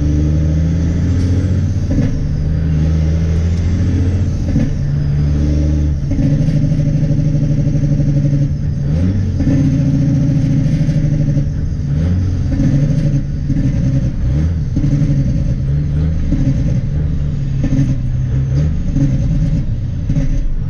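Dump truck's diesel engine and exhaust heard from inside the cab while driving. The engine note rises and drops in steps several times as the driver works through the gears.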